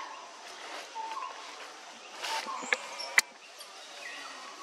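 Outdoor tree-canopy ambience with several short, high chirping calls and two sharp clicks about half a second apart, the second the loudest.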